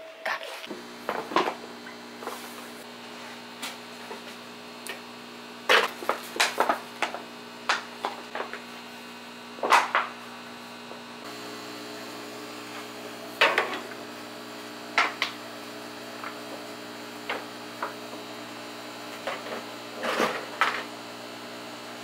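Heat gun running with a steady hum while shrinking heat-shrink tubing over a wire connection, switched on under a second in. Scattered sharp clicks and knocks from handling come over it, the loudest of them about 6, 10 and 13 seconds in.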